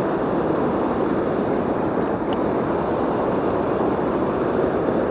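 Spinning reel's drag buzzing steadily as a heavy, hooked fish strips light 4 lb line off the spool against the current. The buzz comes on suddenly and holds at an even level.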